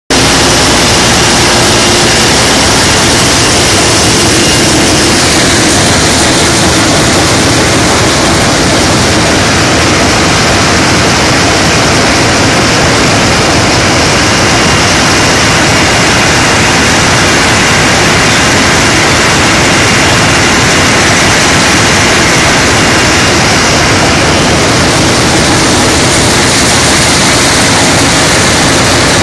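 Drilling rig machinery running: a loud, steady mechanical din with a constant hum underneath and no pauses.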